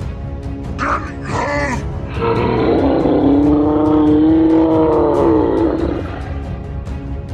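Background music with a steady beat, with a loud, drawn-out roar-like cry over it, starting about two seconds in and lasting about four seconds, rising and then falling in pitch. A couple of shorter cries come just before it.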